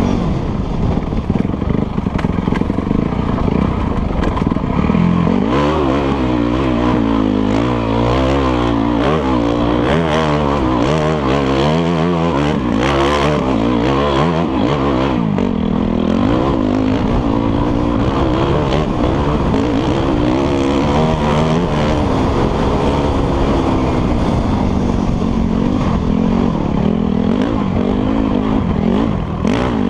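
Enduro dirt bike engine under hard riding, revving up and down as the throttle is worked and gears change, with quick rises and falls in pitch through the middle while it climbs a steep slope.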